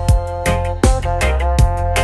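Background music with a steady beat: a drum hit about every three-quarters of a second over a bass line and held, sustained tones.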